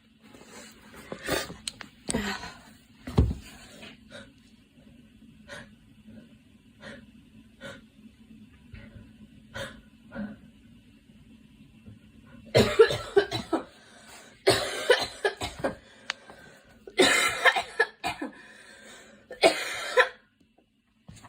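A girl coughing. There are a few coughs at first, then soft short coughs or breaths about once a second, then four loud coughing fits close together in the second half.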